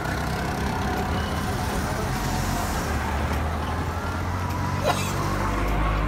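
Road traffic: a motor vehicle's engine running nearby with a steady low hum that swells near the end, and a single sharp click about five seconds in.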